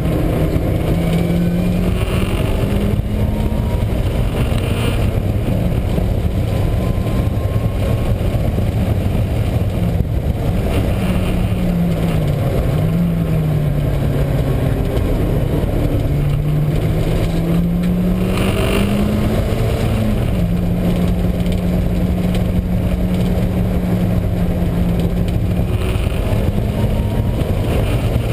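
Mazda Miata's four-cylinder engine and drivetrain running hard at track speed, heard from inside the car, with a loud low drone that rises and falls in pitch as the car speeds up and slows. The drone is the sound of a failing wheel bearing, which the owner first took for the transmission and notes comes mainly under engine braking.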